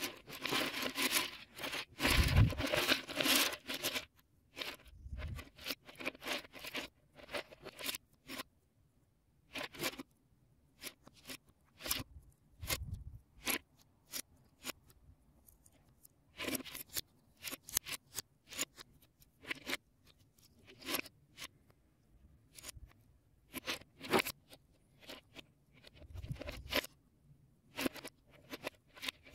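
Plastic Lego Technic parts clattering and clicking as hands rummage through a pile of pieces and handle them. A dense rattling in the first few seconds, then scattered sharp clicks with a few dull thumps.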